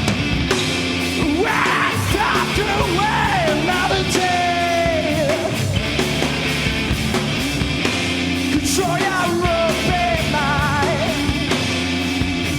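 A rock band playing live at full volume, with electric guitars and a drum kit under a singer yelling and singing the vocal line, including a wavering held note near the end.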